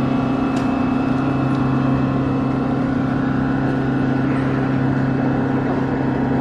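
Steady low drone of a running engine or machine, holding one unchanging pitch.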